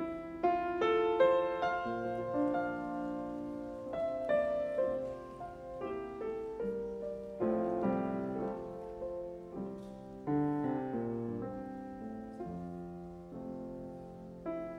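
Background piano music: a gentle melody with chords, notes struck and left to ring.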